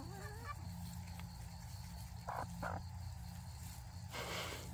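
Free-range chickens clucking softly as they peck at bread, with two short rustles in the middle and a louder, longer rustle near the end.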